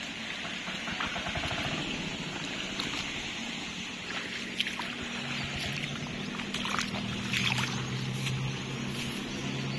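Outdoor ambience by a flooded rice paddy: a steady hiss with a few faint ticks. A faint low hum comes in about five seconds in.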